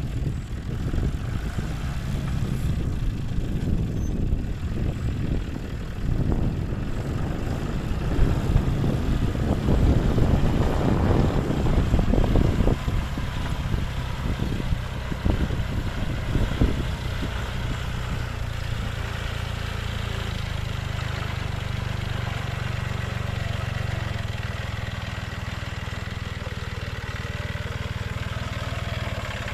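John Deere 5055 tractor's diesel engine running, loud and uneven for about the first half, then settling into a steadier, lower hum.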